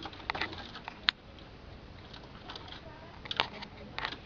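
Scattered light clicks and rustles over a low background hiss, with a sharp click about a second in and another a little past three seconds.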